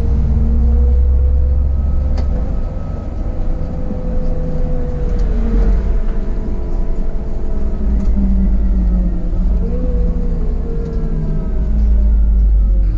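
City bus engine and drivetrain running under way, heard from the driver's cab: a steady low rumble with a whine that drifts up and down in pitch as the bus changes speed.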